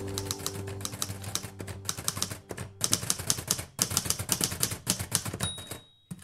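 Manual typewriter keys clacking in quick runs, with short pauses between bursts. A single ringing tone sounds near the end, typical of the typewriter's end-of-line bell.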